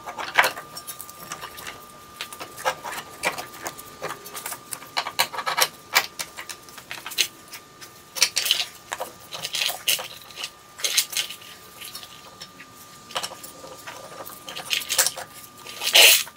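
Irregular metallic clinks, knocks and rattles as a new CV axle is worked between the suspension parts and its splined outer end guided toward the wheel hub, with the loudest knock near the end.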